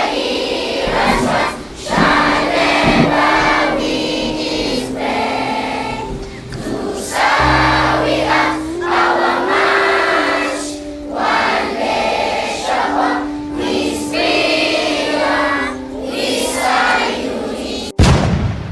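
Music with a choir of voices singing over held notes that step up and down in pitch. A sudden loud hit comes near the end, and then the sound fades out.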